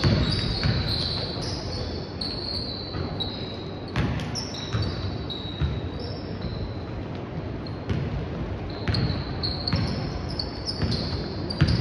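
Basketball game play: a basketball bouncing on the court floor in uneven thuds, with many short, high-pitched squeaks of players' shoes on the court.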